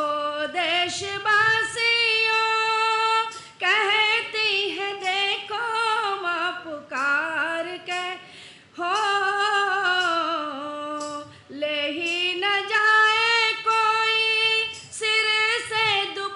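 A woman singing a Hindi patriotic song solo into a microphone, in long held, gliding notes with short pauses for breath between phrases.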